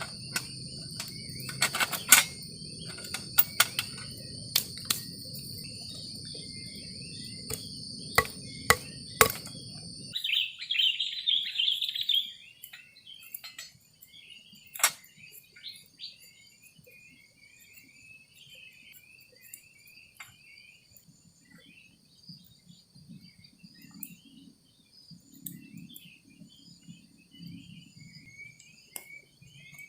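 Forest ambience: a steady high insect drone with a low rumble and scattered sharp clicks, which cuts off abruptly about ten seconds in. Chirping calls follow, a loud burst at first and then scattered calls.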